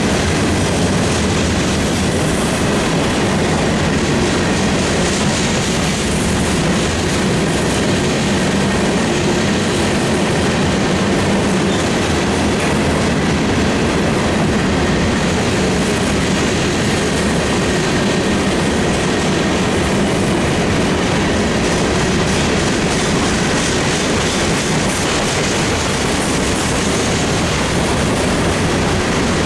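A train rolling steadily past at close range, its wheels running continuously over the rails.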